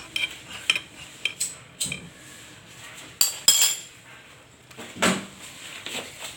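Kitchen utensils and a cooking pot clinking and clanking: a few light clinks with a short ring in the first two seconds, then two louder clanks about three seconds in and another about five seconds in.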